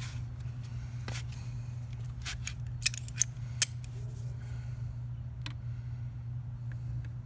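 Metal clinks and clicks of a socket and breaker bar being handled and fitted onto the nut of a motorcycle's centrifugal oil filter spinner, the sharpest three coming close together about three seconds in, over a steady low hum.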